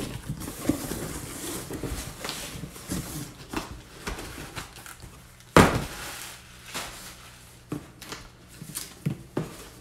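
Cardboard shipping box opened by hand: flaps and packing cardboard rustling and scraping, with one loud thump a little past halfway.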